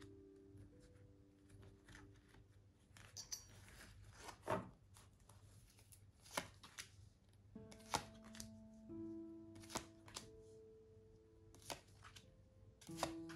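Tarot cards being drawn from the deck and laid down on a cloth-covered table: a short shuffling rustle about three seconds in, then sharp card snaps every second or two. Soft background music with held notes plays underneath.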